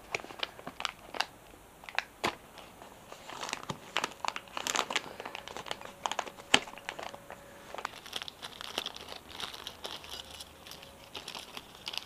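Packaging crinkling and rustling as a parcel is unpacked by hand, with many scattered sharp clicks and taps.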